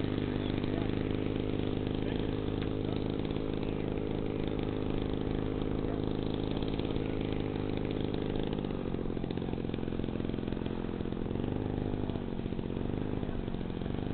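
Model airplane engine idling steadily, an even hum that wavers slightly in pitch in the second half.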